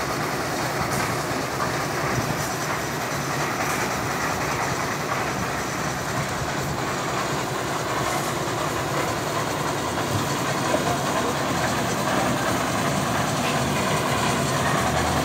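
Concrete mixer running steadily, a continuous even mechanical noise with no pauses.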